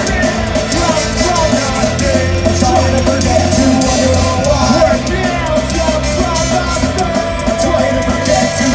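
Ska-punk band playing live at full volume, with shouted vocals over the instruments.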